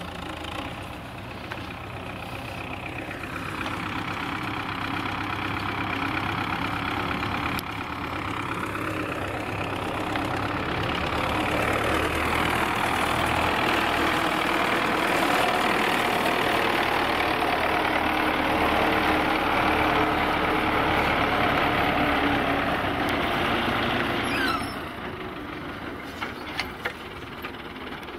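Diesel engine of a wheeled tractor with a front loader, driving along a dirt road. It grows louder as it approaches, is loudest while it passes close by, and drops off sharply about three quarters of the way through.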